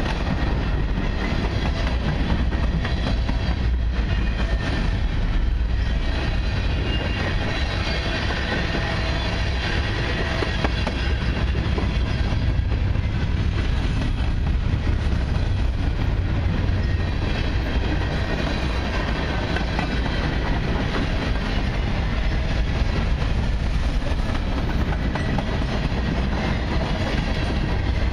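Freight cars of a long mixed freight train rolling past on steel wheels over the rails, a steady, continuous sound heaviest in the low end.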